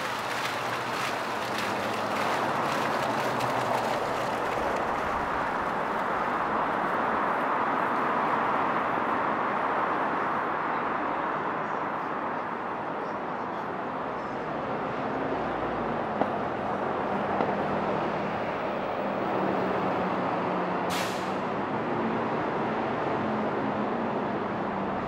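Steady city street traffic: vehicles running past on a busy road, with a low engine hum later on and a short, sharp hiss near the end.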